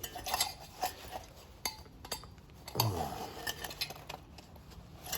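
Hand tools and metal parts of a microwave magnetron clinking and clicking as it is pried apart: a string of irregular, sharp metallic taps and knocks.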